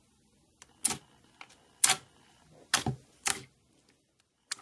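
Fingers pressing and squeezing a glossy holographic slime, making sharp wet pops and clicks: four loud ones roughly a second apart, with a few fainter ones between.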